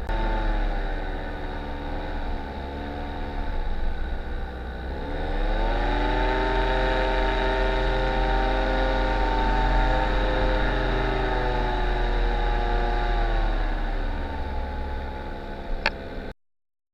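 Paramotor engine and propeller running in flight: the pitch rises about five seconds in as it is throttled up, holds steady, then falls back near the end. The sound cuts off abruptly just before the end.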